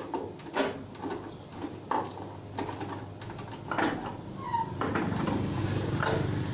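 Metal hold-down clamps and a hand tool clicking and knocking against the slotted metal T-slot table of a CNC router as wooden boards are clamped down, in irregular knocks. A steady low hum runs underneath and grows louder about five seconds in.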